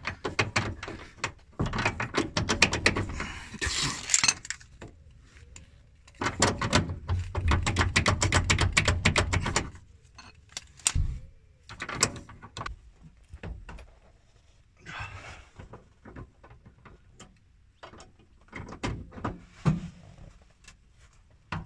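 Socket ratchet clicking in two long runs of rapid clicks as a bolt on a car's rear beam is wound round, then scattered knocks and clinks of metal tools.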